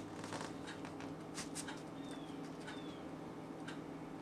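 Faint, scattered soft clicks and taps as thick cornbread batter is poured from a measuring cup into foil cupcake liners in a metal muffin tin, over a steady low hum. Two faint high chirps, each falling slightly, come about halfway through.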